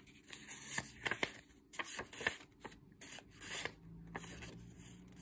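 Stack of die-cut paper collage pieces being handled and shuffled: soft paper rustling with irregular light flicks and taps of card edges.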